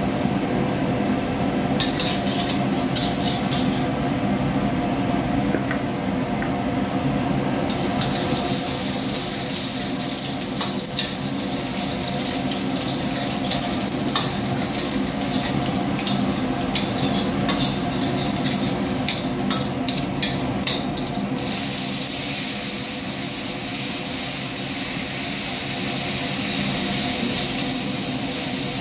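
A metal ladle clinks and scrapes repeatedly against a steel wok while food sizzles in hot oil. The sizzle grows louder about eight seconds in and again past twenty seconds, where the clinking stops. Underneath, a gas wok burner and kitchen exhaust hood keep up a steady low roar.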